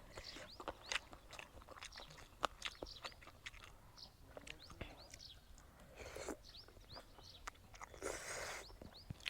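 A person chewing and biting a spicy Thai glass-noodle salad with chicken feet and seafood, close up: many sharp crunches and wet mouth clicks, with two longer noisy mouth sounds about six and eight seconds in. Faint short high chirps sound in the background.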